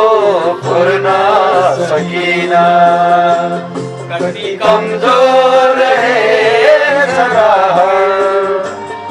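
A man singing a slow song in long, wavering held notes.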